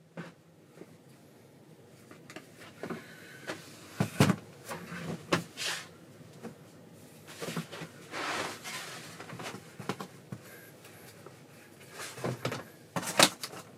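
A cardboard box being handled and opened by hand: scattered knocks and clicks, with a longer rustling scrape about eight seconds in.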